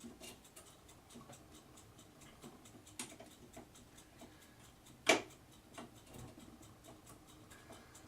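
Small plastic clicks and taps of a DDR4 memory module being worked into a tight motherboard DIMM slot, with one sharper click about five seconds in and a lighter one about three seconds in.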